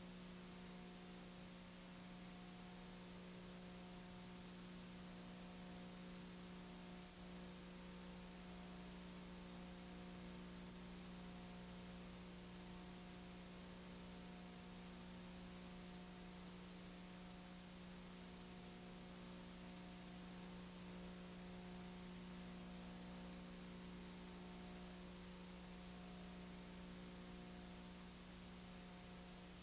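Faint, steady electrical hum with an even hiss underneath, unchanging throughout; no crowd or game sound is heard.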